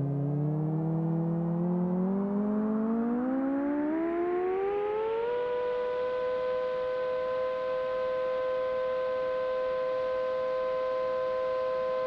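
Synthesizer tone in background music that glides steadily upward for about five seconds, then holds one sustained, siren-like note.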